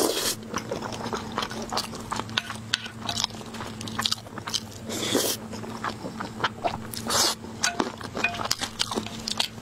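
Close-up eating sounds: wet chewing and lip smacks, with a wooden spoon scraping and tapping on a porcelain plate, in many short clicks. A faint steady hum runs underneath.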